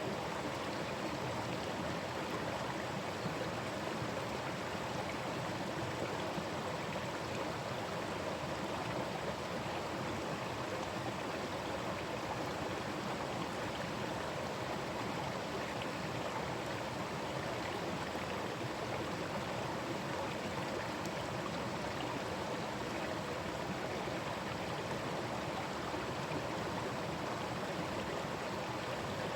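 Forest stream running over rocks, a steady rushing and burbling of water.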